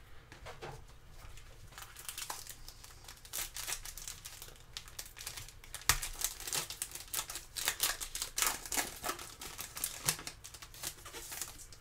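Foil trading-card pack wrapper crinkling and tearing as gloved hands rip it open: a run of irregular crackles, with a sharp crack about six seconds in.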